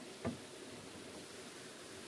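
One short, light knock of wooden floor planks about a quarter second in, then only a faint steady background hiss.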